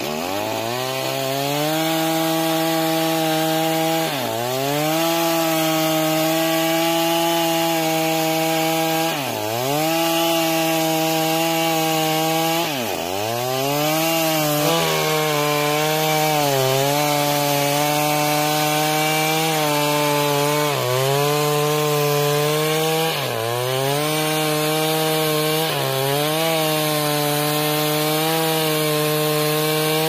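Two-stroke chainsaw at high revs cutting through a felled tree trunk. The engine revs up at the start, then holds a high steady pitch that dips briefly and recovers every few seconds.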